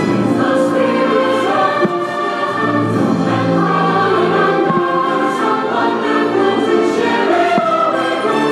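Orchestral music with a choir singing: the fireworks show's soundtrack.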